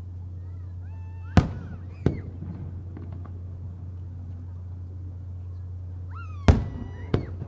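Aerial firework shells bursting: two loud booms about five seconds apart, each followed under a second later by a fainter bang, over a steady low hum.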